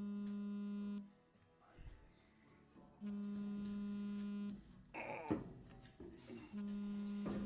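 A steady electric buzz sounding in three identical pulses, each about a second and a half long and about three and a half seconds apart, with a faint click between the second and third.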